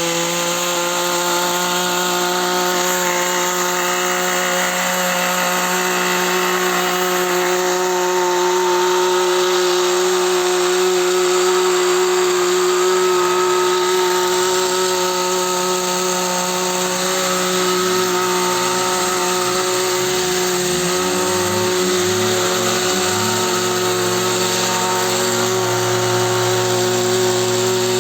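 Two-stroke engine of a Husqvarna pole pruner running steadily at high speed during a test cut after repair, with its note wavering in the second half.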